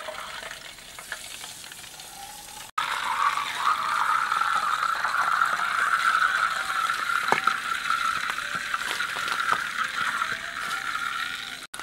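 Faint metallic scraping of a knife cutting open an aluminium drink can, then, after a cut about three seconds in, a loud steady fizzing with crackles from the carbonated cola in the opened can.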